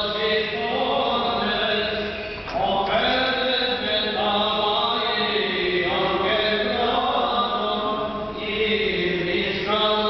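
Greek Orthodox Byzantine chant: a sung melody that bends up and down over a steady held low drone note.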